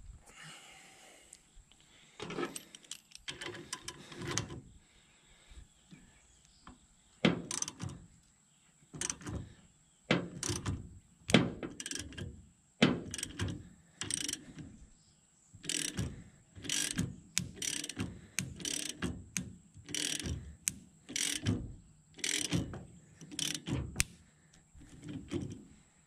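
Hand ratchet clicking in short bursts, about one a second for most of the time, as it is worked back and forth to turn the screw of a C-frame ball joint press that is pressing a U-joint's bearing caps into a driveshaft yoke.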